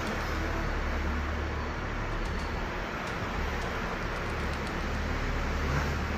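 Steady road traffic noise, vehicles running along a multi-lane road, with a continuous low rumble.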